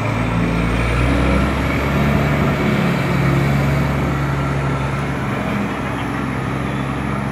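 Heavy diesel engine of a container reach stacker running, its pitch rising a little about two seconds in and then holding steady.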